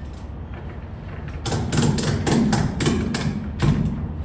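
Ratchet on an Ancra cargo strap being cranked to tighten it across a trailer load: a quick run of about eight clicking knocks, roughly four a second, starting about a second and a half in.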